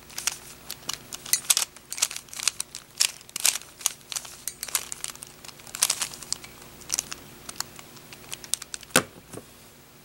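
Plastic Rubik's Cube being turned by hand through a run of quick face and slice turns, the final-layer edge-cycling algorithm: irregular clicking and clacking of the layers, several clicks a second. About nine seconds in comes a louder knock as the solved cube is set down on a wooden table.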